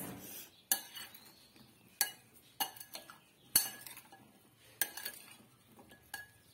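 Spoon stirring chunks of raw marinated jackfruit in a ceramic bowl, with a sharp clink of metal on the bowl every second or so.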